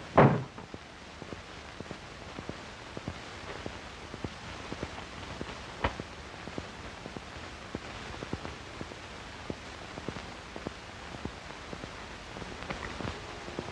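Steady hiss of an old optical film soundtrack, peppered with crackles and clicks. There is a sharper pop about six seconds in. A short, loud thump comes right at the start.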